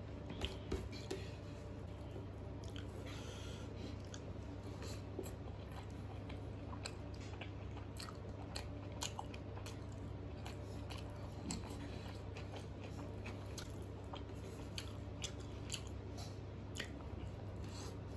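Close-miked eating sounds: a man chewing mouthfuls of rice and pea-and-paneer curry eaten by hand, with scattered small wet mouth clicks and the squish of fingers mixing rice on a paper plate. A steady low hum runs underneath.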